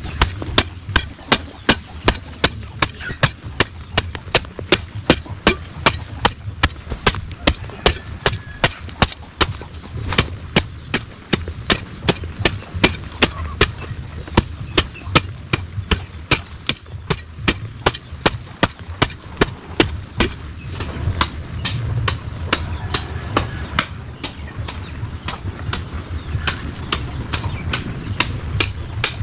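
A hoe striking into hard clay soil in a quick steady rhythm, about two strikes a second, the strikes growing fainter after about twenty seconds. A steady high-pitched tone runs underneath.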